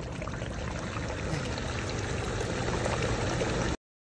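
Toyota Hilux pickup reversing in a swamp: the engine runs steadily while the rear wheel churns muddy water against a log wedged under the tyre, the churning slowly getting louder. The sound cuts out abruptly shortly before the end.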